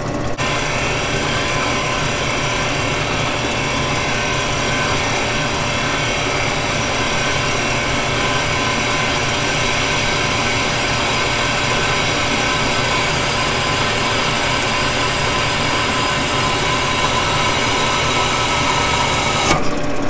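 Ryobi drill press running with a Milwaukee glass drill bit grinding into a water-wetted glass plate. A steady high-pitched whine sits over the motor's running sound; it starts about half a second in and cuts off suddenly near the end.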